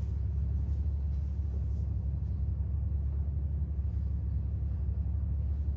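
Steady low rumble of background noise with faint rustles over it.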